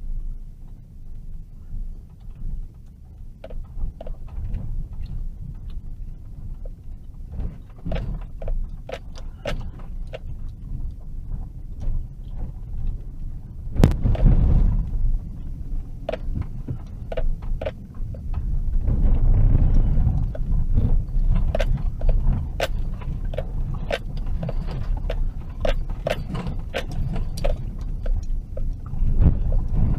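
A vehicle driving slowly over a rough dirt road, heard from inside the cabin: a steady low rumble from the tyres and suspension, with frequent sharp clicks and rattles. There is a heavy bump about fourteen seconds in, and the rumble grows louder about five seconds later.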